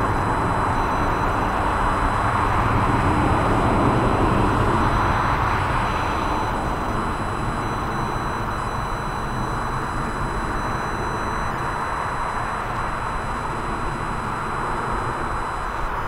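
Jet engines of an Airbus A330 twin-jet airliner roaring at takeoff power as it climbs out, loudest about four seconds in and then easing off slowly as it draws away.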